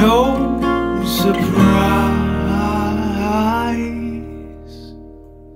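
Background music led by acoustic guitar, with notes ringing and fading out near the end.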